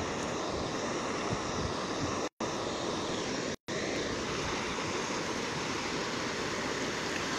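Steady rushing of a flooded river's fast, muddy water. The sound drops out completely twice, briefly, a little over two seconds and about three and a half seconds in.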